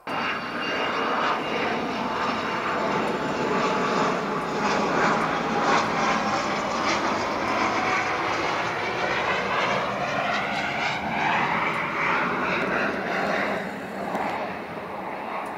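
Twin-engine business jet flying low on approach with its gear down: steady jet engine noise with a high whine that sweeps up and down in pitch as it passes, easing slightly near the end.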